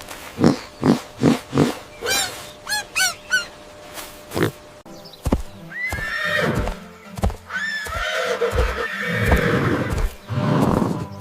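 Horse neighing, with several long wavering whinnies in the second half. These are preceded by four short low pulses and a quick run of high chirps.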